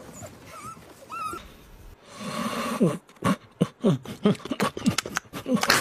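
Puppies whining with a few faint, high squeaks. About two seconds in, after a cut, a Shiba Inu makes a fast run of short, falling-pitched sounds mixed with clicks, much louder.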